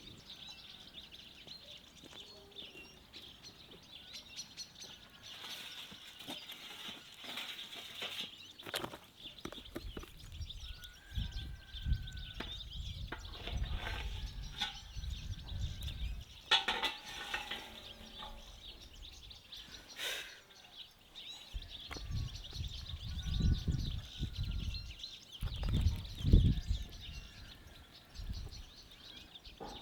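Birds chirping over a steady high-pitched hiss, with scattered sharp clicks and bouts of low thumping from about a third of the way in, loudest near the end.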